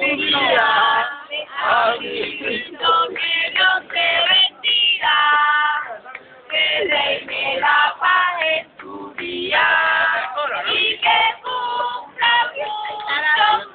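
A small group of people singing a birthday song together in held, sustained notes, with short breaks between phrases.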